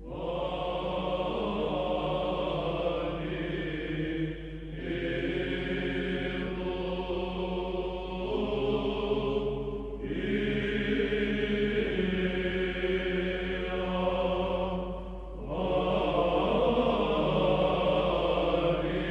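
Orthodox church chant: sung voices holding long phrases, pausing briefly about every five seconds.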